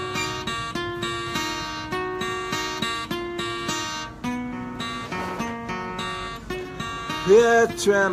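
Acoustic guitar strummed steadily in an instrumental break between verses of a song, chord strokes following one another evenly. A brief bit of voice comes in near the end.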